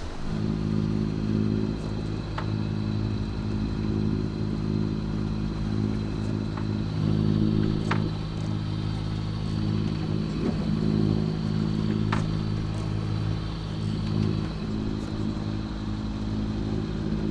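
A sailboat's auxiliary engine running steadily under way, a constant low drone with a few faint clicks.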